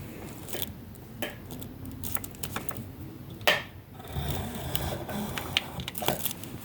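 A pencil and ruler being handled on paper on a tabletop: scattered light taps and short scratches, with one sharper knock about three and a half seconds in.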